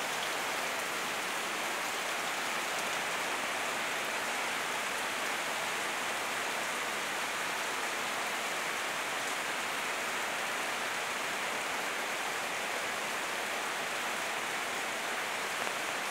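Steady rain falling on leaves and pavement, an even hiss with no breaks.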